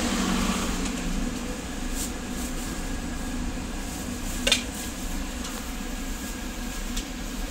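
Steady background hum with a few light clicks, and one sharp click about four and a half seconds in.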